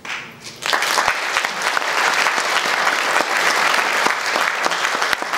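Audience applauding, breaking out about a second in and continuing as steady, dense clapping.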